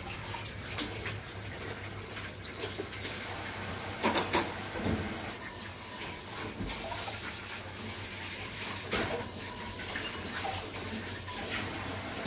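Kitchen tap running into the sink while dishes are washed, with a few sharp clinks of dishes: two close together about four seconds in and another near nine seconds.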